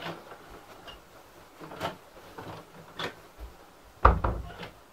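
A few soft clicks and knocks, then a loud thump about four seconds in as an interior panelled door is shut.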